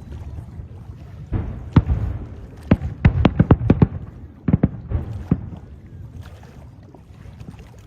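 Fireworks going off: a few sharp bangs, then a quick string of cracks about three seconds in and a few more bangs around five seconds, over a low rumbling background.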